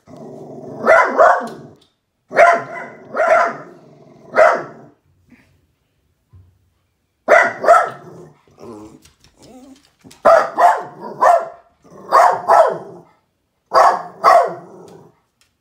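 Small dog barking repeatedly, in quick runs of two or three barks, with a pause of about two seconds roughly five seconds in.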